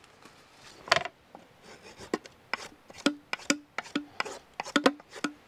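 Drawknife shaving a thin wooden stake clamped in a shaving horse: a run of short, sharp wooden clicks, roughly two a second, several with a brief ringing note from the thin strip.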